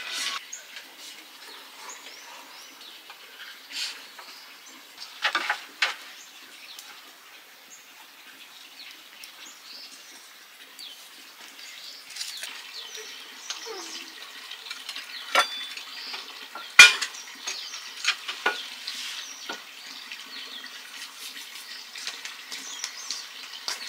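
Scattered clinks and knocks of metal cooking pots, dishes and firewood being handled, with the faint crackle of a wood fire underneath. The sharpest clank comes about two-thirds of the way through.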